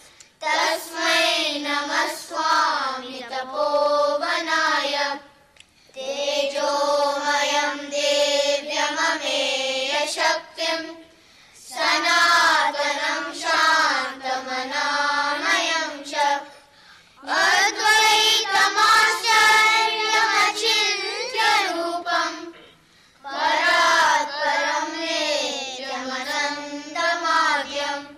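A group of children chanting Sanskrit shlokas in unison, in melodic phrases of about five seconds with a short pause for breath between each.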